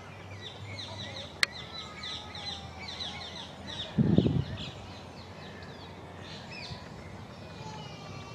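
Birds calling: a quick run of short high chirps, about five a second, for the first three seconds or so, then scattered calls. A sharp click comes about a second and a half in, and a dull low thump, the loudest sound, comes about four seconds in.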